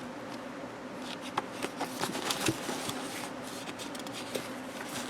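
Paper pages of a planner being leafed through and handled: a run of soft, crisp rustles and ticks starting about a second in.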